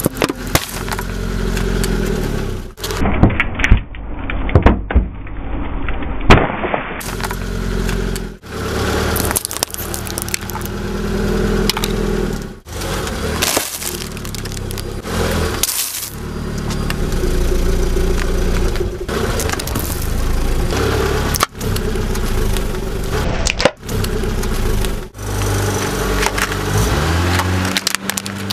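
A car's engine running as its tyre rolls over and crushes a series of objects: sharp cracking and breaking sounds, the loudest bunch of snaps about three to six seconds in, in short clips that cut abruptly from one to the next.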